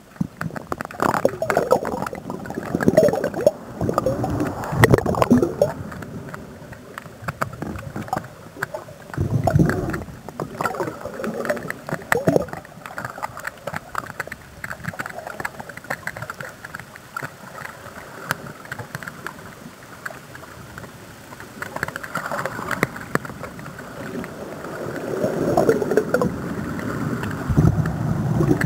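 Muffled water sloshing and gurgling around an underwater camera on the end of a landing-net pole, in uneven surges with small knocks.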